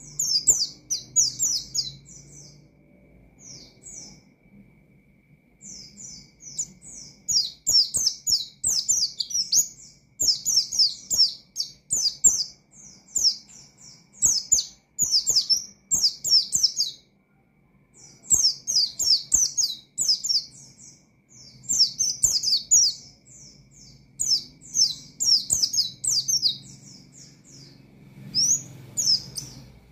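White-eye (pleci) singing in fast, high, twittering phrases of rapid chirps, a second or more each, separated by short pauses. This is the energetic, wild-sounding song used to provoke a rival bird.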